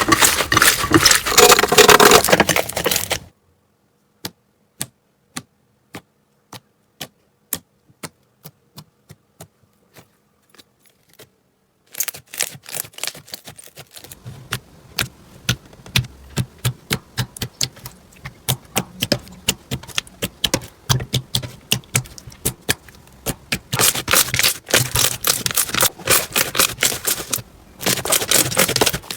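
Slime being squeezed and kneaded by hand, making wet crackling and sharp clicking pops. A dense crackle at the start gives way to single clicks about a second apart that speed up, then to a fast run of clicks with louder crackling near the end.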